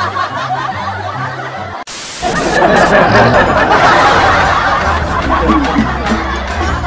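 Background music with a repeating bass line. About two seconds in it cuts off for a moment, then laughter comes in louder over the music.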